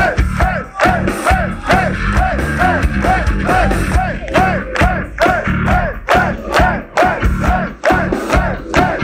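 Heavy metal band playing live at full volume: a steady, pounding drum beat under a short rising-and-falling figure repeated about two to three times a second, with the crowd shouting along.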